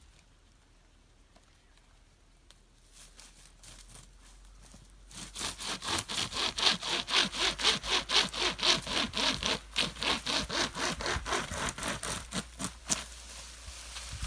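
Hand-pulled pocket chainsaw, its bi-directional chain drawn back and forth through a sapling, rasping on every stroke. A few light strokes come first, then about five seconds in a fast, steady run of two to three strokes a second, which stops near the end as the cut goes through.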